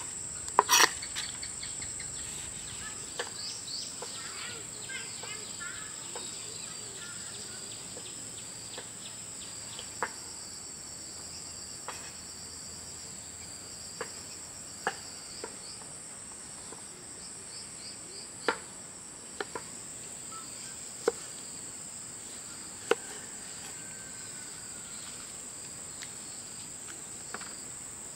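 A steady, high-pitched drone of insects, with sharp knocks scattered every second or few, the loudest in the first second.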